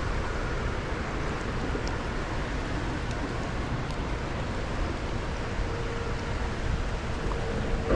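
Steady rush of fast river water flowing below a dam, an even noise with no let-up. A faint steady hum joins in over the last couple of seconds.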